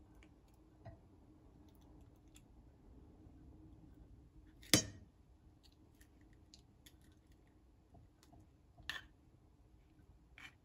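Eggs and eggshell being handled against a bowl while separating yolks from whites: scattered light clicks and taps, with one sharp knock about halfway through and two smaller ones later, near the end.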